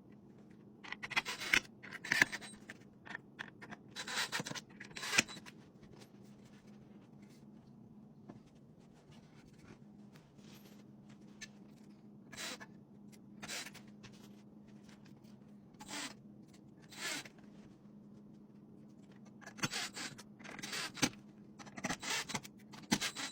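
Short scraping and rubbing sounds of wooden shelf pieces being handled and screwed together, coming in clusters with pauses between, the busiest stretch near the end, over a faint steady low hum.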